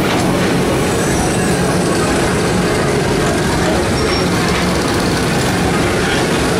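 Tomorrowland Transit Authority PeopleMover train rolling steadily along its elevated track, heard from aboard the open car as a constant rumble and rush with a low hum.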